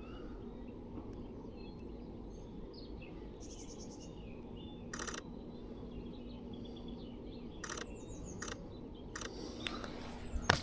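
Faint songbird chirps over low outdoor background noise, broken about halfway through by four short bursts of rapid camera shutter clicks from burst-mode shooting.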